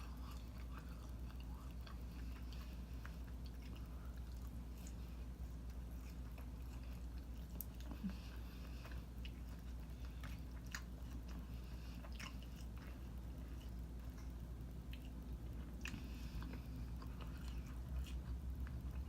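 A person chewing and biting mouthfuls of breaded orange chicken and rice: faint, scattered wet mouth clicks over a steady low hum.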